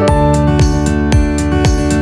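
Background music: instrumental track with guitar and keyboard over a steady beat.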